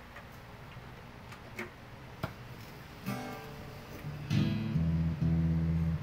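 A few faint clicks, then a D&D Django Jr. Tokyo Edition acoustic-electric guitar strummed through an amplifier: soft notes about halfway through, then loud, ringing strummed chords held one after another near the end.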